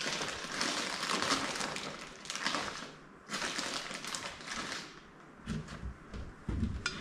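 Rummaging through loose metal bolts, a dense clattering rattle for about three seconds, then again for a second and a half, followed by a few light knocks.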